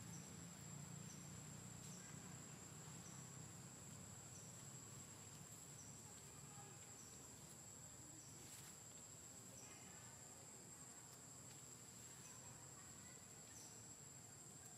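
Faint forest insects: a steady high-pitched drone with a short high chirp repeating about once a second.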